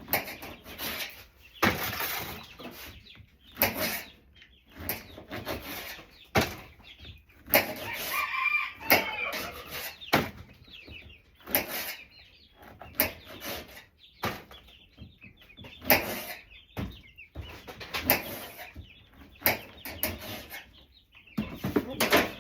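Knife chopping fruit on a cutting board in sharp, irregular strokes, with chickens clucking in the background.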